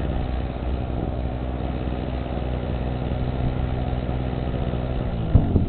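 Small two-stroke portable generator engine running steadily at a constant speed; its hum breaks off near the end.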